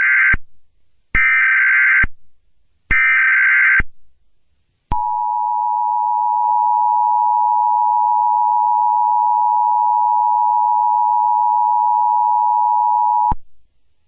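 Emergency Alert System SAME header: the end of one burst of data tones and two more, each just under a second long and about a second apart. Then the EAS two-tone attention signal holds steady for about eight and a half seconds and cuts off sharply, marking the start of an emergency alert message.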